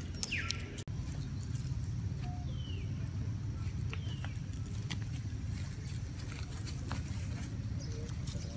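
A steady low motor rumble, like an engine running nearby, with a few short high chirps gliding downward over it.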